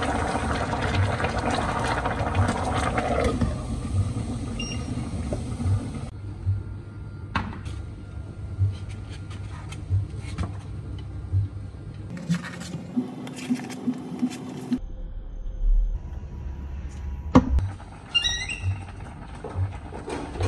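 Water running for the first few seconds, then scattered clicks and knocks, over a soft low thump repeating about every one and a half seconds.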